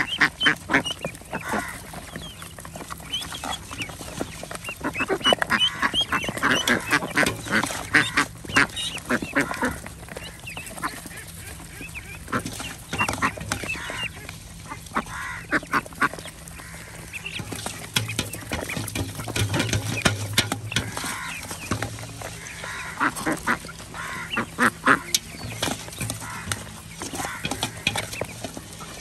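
Mixed flock of ducks, ducklings and young chickens feeding from a tray of wet mash: many quick clicks and pecks of bills in the feed, with quacking and other calls throughout.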